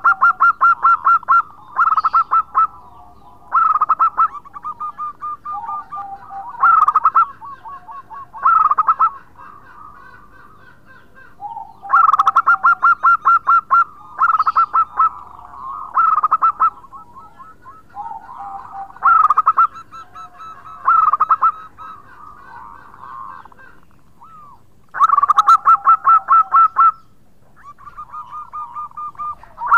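Zebra dove (perkutut) singing loudly: a run of song phrases, each a fast rattle of short cooing notes lasting one to three seconds, repeated with short pauses between.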